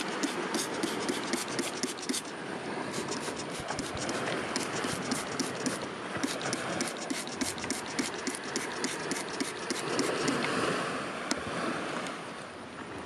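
Fingers scratching and scraping in gritty soil and crumbly rock around a crystal cluster: a rapid run of dry scratches, about four to five a second, that stops about ten seconds in, followed by a louder grainy rustle of grit.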